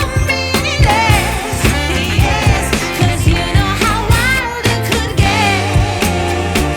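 Background pop music with a singing voice over a steady beat of drums and bass.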